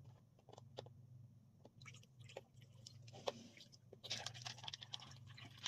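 Green grape ade poured from a soft drink pouch into a plastic cup full of ice: faint splashing with scattered cracks and pops from the ice, thickening into a steadier trickle and hiss about four seconds in.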